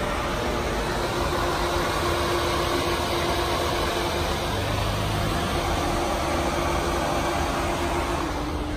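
Lamborghini Aventador's V12 engine idling steadily.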